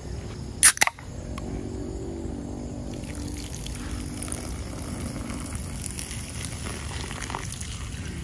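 A can of Sprite is cracked open with a sharp double pop and hiss a little under a second in. From about three seconds in, the Sprite is poured in a thin stream into a wok of half-cooked pork pieces, splashing and trickling steadily.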